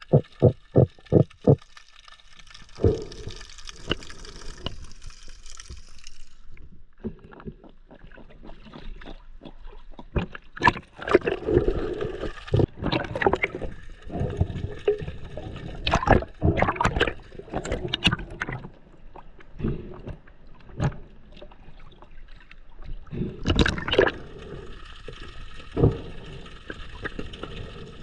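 Water gurgling and sloshing over the microphone during a dive, broken by irregular knocks and splashes, busiest in the middle and again near the end.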